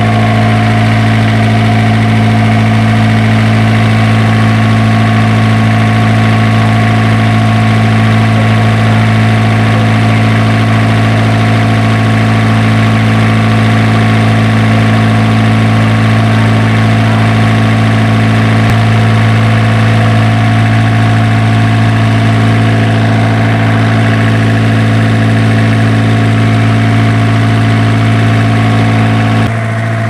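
Isuzu diesel generator engine running at a steady, unchanging speed, loud and even. Its glow plugs are dead, and it was brought to life with a flame at the intake.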